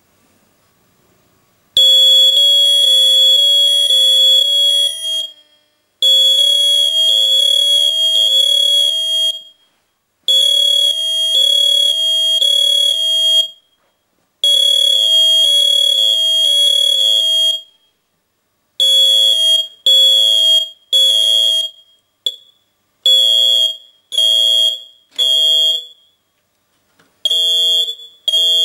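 The sounders of four stripped-down smoke alarms shrieking together, quite loud and shrill. The sound starts about two seconds in and comes in long blasts of three to four seconds, then in shorter bursts of about a second toward the end.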